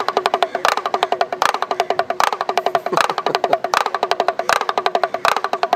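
A damru, a small two-headed hourglass pellet drum, shaken rapidly so its beaters rattle against the heads. Fast, ringing strokes with a louder accent about every three-quarters of a second.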